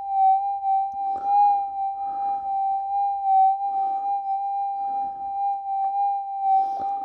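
Minelab GPZ 7000 metal detector holding a steady, slightly wavering threshold tone during a ground-balance (fast tune) with the trigger held in. Soft noisy bursts come under it about once a second.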